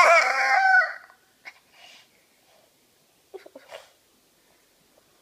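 A rooster crowing: one call with a wavering pitch that breaks off about a second in, followed by a few faint short sounds.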